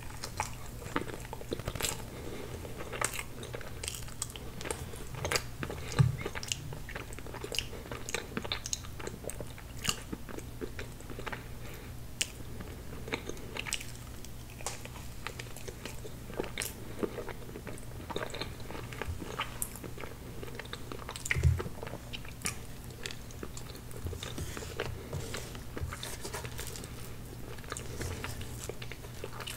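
Close-miked chewing of soft chocolate tiramisu cake and cream: a steady run of small wet mouth clicks and smacks. A faint steady low hum sits underneath, and two low thumps come about six seconds in and near two-thirds of the way through.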